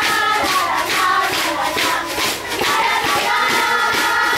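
Music with voices singing over a steady beat.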